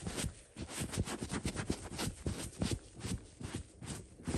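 Damp sponge scrubbing a fabric sofa cushion: a fast, irregular run of short rubbing scuffs.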